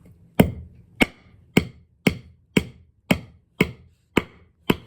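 Hammer blows driving a screw into a board, nine sharp strikes at a steady pace of about two a second, each with a short ring.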